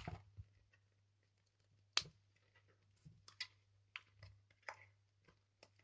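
Faint crinkling and clicking of plastic wrapping being handled and pulled off, with a sharp click at the start, another about two seconds in, and scattered small crackles between.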